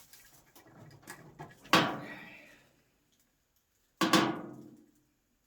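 Two sharp metallic clanks about two seconds apart, each ringing out for about a second, from the dryer's sheet-metal cabinet being knocked during work on the door switch. Faint handling clicks come before them.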